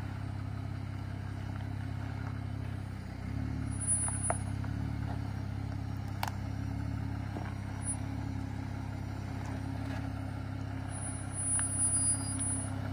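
Jeep Wrangler Willys engine running low and steady as it crawls down a rocky ledge. Its note shifts slightly about three seconds in, and there is a sharp click about six seconds in.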